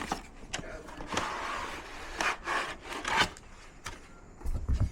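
Packaging being handled: rubbing and scraping with scattered clicks, most continuous from about one to three seconds in, and a low bump near the end.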